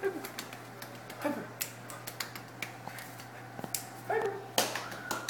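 Shetland sheepdog puppy's claws clicking and tapping on ceramic tile stairs as it shifts and steps about, with a couple of brief high vocal sounds among the clicks.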